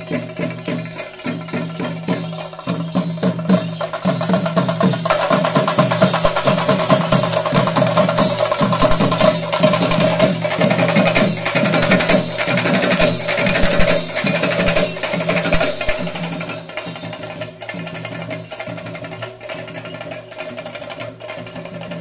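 Kerala ritual percussion ensemble: chenda drums beaten in a fast, dense roll with clashing cymbals over a steady held note. It grows louder about four seconds in and eases off again after about fifteen seconds.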